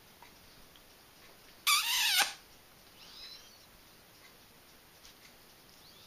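African grey parrot gives one loud, harsh call about two seconds in, lasting about half a second and dropping in pitch as it ends, followed a second later by a softer whistled chirp.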